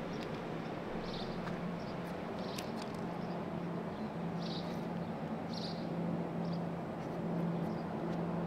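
City street ambience: a steady low hum of traffic, with short bird chirps every second or so and a few faint clicks.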